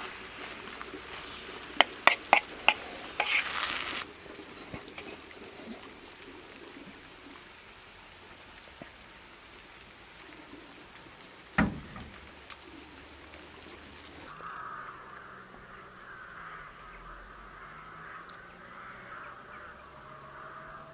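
A spatula stirring and scraping filling in a pan, with several sharp taps against the pan about two seconds in. Later there is a single thump, and near the end a flock of birds is calling.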